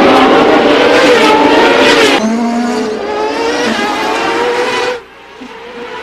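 Open-wheel IndyCar engines at high revs passing at speed, their pitch dropping as they go by. The sound changes abruptly to another pass about two seconds in, falls away about five seconds in, and another car's engine rises near the end.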